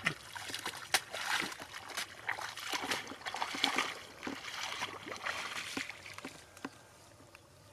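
Bare feet wading through shallow, muddy paddy water, with irregular sloshing splashes at each step that fade away after about six seconds.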